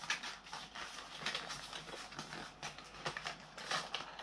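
Hands opening a small box and handling its packaging and the small parts inside: faint, irregular rustling with scattered light clicks and taps.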